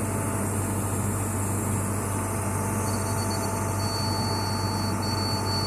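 A steady low mechanical hum, like a motor running, with a thin high steady tone coming in about three seconds in.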